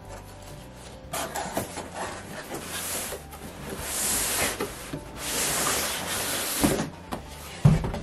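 Cardboard scraping and rubbing against cardboard as a guitar box is slid out of its outer shipping carton, in several long dragging scrapes. A dull thump comes shortly before the end as the box comes down.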